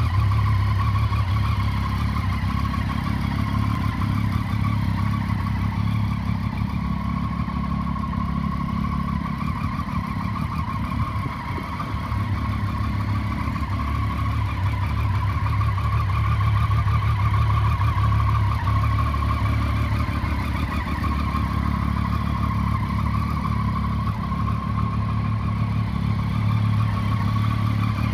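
Triumph Street Triple 675's three-cylinder engine idling steadily through an aftermarket Arrow end can.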